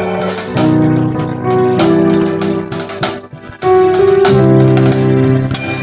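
A keyboard playing slow, held chords that change about once a second.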